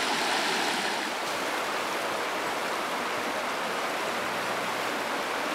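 Shallow river water flowing steadily around stepping stones.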